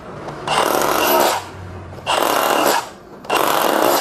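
Bosch GBH 187-LI cordless 2.4-joule SDS-plus rotary hammer in hammer-only mode, chiselling concrete in short runs: three bursts of hammering about a second long, with brief pauses between them.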